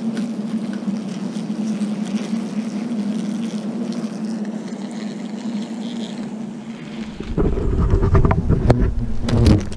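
Many European hornets buzzing in a steady, even drone around their nest. From about seven seconds in, a low rumble and knocks of the camera being moved and rubbed against the suit join the buzzing.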